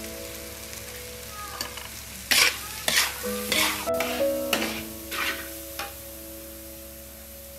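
Metal spatula scraping and stirring in a steel wok while egg, vegetables and freshly added cooked rice sizzle, in a run of strokes roughly half a second apart between about 2 and 6 seconds in.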